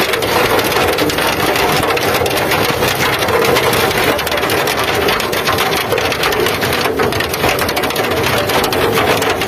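Hail falling with rain: a dense, steady clatter of hailstones pelting the ground.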